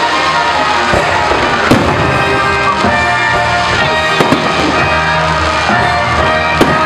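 Fireworks bursting with several sharp bangs, over loud music playing throughout.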